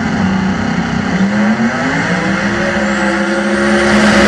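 Two drag-racing cars accelerating hard side by side down the strip. Their engine note dips about a second in, as at a gear change, then climbs again. It grows louder near the end as the cars pass close.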